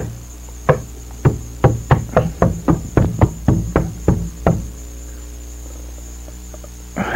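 A stick striking something hard in a run of sharp knocking blows, about fifteen of them. They start slow, quicken to several a second and stop about four and a half seconds in, leaving a steady low hum.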